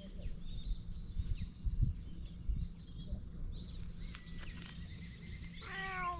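Small birds chirping over a steady low rumble, and near the end a cat meows once, a short falling call.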